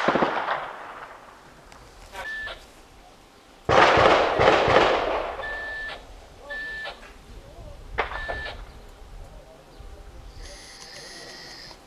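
A loud gunshot or blast about four seconds in, echoing and dying away over a couple of seconds, with the fading tail of an earlier one at the start. A military two-way radio gives short high beeps several times, and a sharp click comes about eight seconds in.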